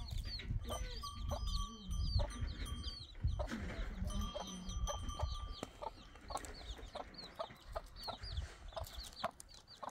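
Chickens clucking, with many short high peeps repeating throughout over a low rumble. Two brief steady whistle-like tones sound about a second in and again about four seconds in.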